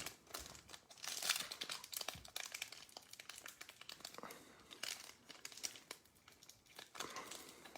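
Foil trading-card pack wrapper crinkling and tearing as it is opened by hand, an irregular crackle throughout.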